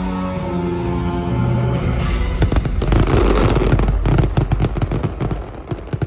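Fireworks display music with held chords, then from about two seconds in a rapid barrage of many firework bangs and crackles over the music.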